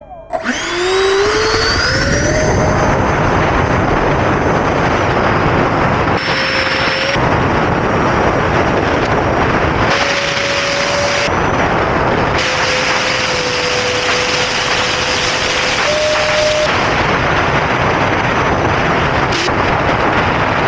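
E-flite Habu STS's 70 mm electric ducted fan on a 4S battery, heard from on board the jet. It spools up with a steeply rising whine over the first two seconds for the takeoff, then runs at high power as a loud steady rush, its whine stepping up and down in pitch with the throttle.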